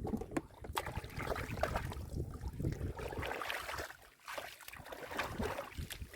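Shallow muddy water sloshing and splashing irregularly, with short knocks and slaps, as hands grope through mud for fish.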